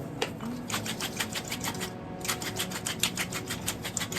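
Hand-twisted spice mill grinding seasoning over bok choy: a fast, even run of dry clicks at about six a second, breaking off briefly about two seconds in and then going on.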